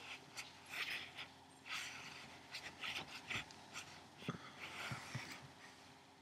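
A cat close to the laptop microphone, making soft rustling and sniffing or snuffling sounds in short, irregular bursts, with a few soft knocks in the second half.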